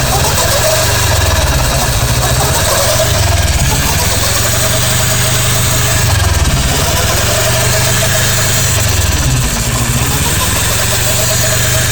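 Car running with a steady hum and buzz, a thin whine held above a low engine note that swells and dips slowly; the owner suspects it could be a worn gearbox bearing.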